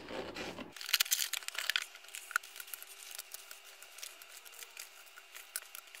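Cardboard box and plastic-bagged accessories being handled while unboxing: quick crinkling, scraping and small clicks, loudest about a second in.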